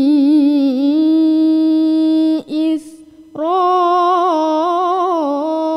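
A girl's melodic Quran recitation (tilawah), holding long drawn-out vowels with wavering ornaments. About two and a half seconds in she breaks off for a short breath, then resumes on a higher held note.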